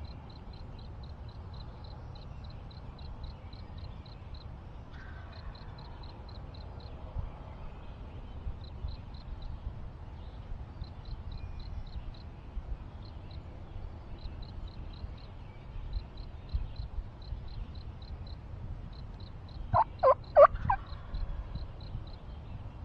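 A wild turkey gobbler gobbles once, loudly, near the end: a quick rattling run of notes lasting about a second. Underneath runs a faint, high, rapid ticking.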